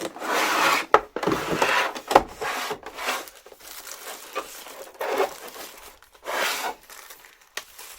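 Packaging being handled as a headphone box is unpacked: rustling and crinkling in several uneven bursts, with sharp knocks about one and two seconds in.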